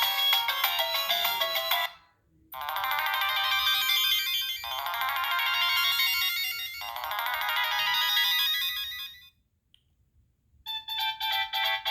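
Preloaded ringtones playing from a Siemens C72 mobile phone's speaker. One tune cuts off about two seconds in, and after a brief pause a second melody plays for about seven seconds. After another short silence, a third ringtone of fast repeated notes starts near the end.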